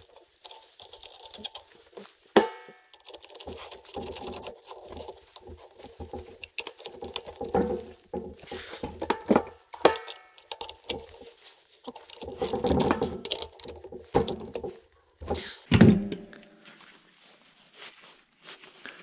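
Metal alternator parts and hand tools being handled, clinking and knocking irregularly, with scattered sharp clicks and a few short metallic rings.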